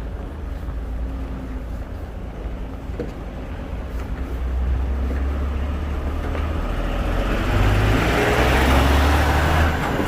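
A road vehicle passing close by: a low engine rumble with tyre noise that builds over several seconds to its loudest near the end, then drops away.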